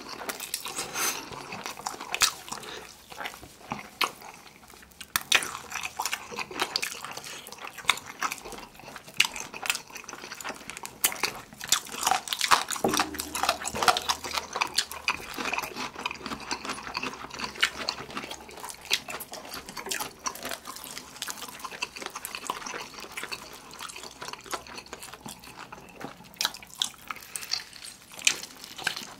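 Close-miked eating sounds: wet chewing, lip smacks and bites into sticky sauce-glazed fried chicken drumsticks, a dense run of small sharp clicks.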